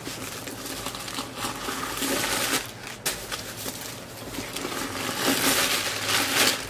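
White protective wrapping crinkling and rustling as it is handled and pulled off a leather handbag's handles, swelling in two louder stretches, about two seconds in and near the end.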